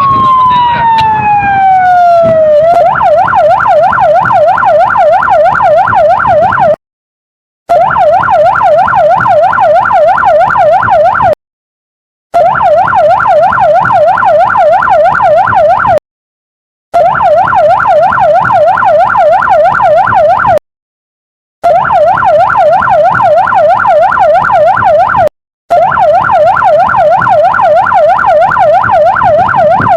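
Police patrol car electronic siren: a wail falling in pitch as it winds down, then switching to a fast rising-and-falling yelp, about four cycles a second. The yelp is broken by several short gaps of dead silence.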